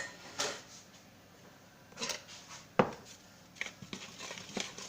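A utensil stirring dry flour and sugar in a mixing bowl: scattered scrapes and light knocks against the bowl, with one sharper knock near the middle.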